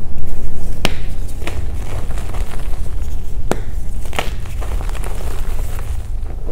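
Gym chalk crushed and crumbled by hand, with a few sharp cracks and a soft crackle of crumbling chalk in between.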